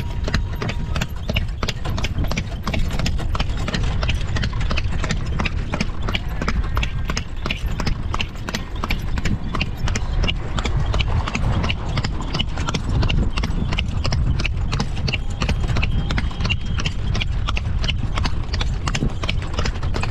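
Horse's hooves clip-clopping steadily as it pulls the ride along, over a continuous low rumble.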